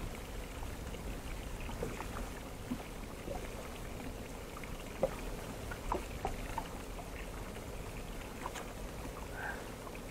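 Sea water lapping and trickling against a small inflatable boat over a low steady rumble, with small scattered clicks and ticks.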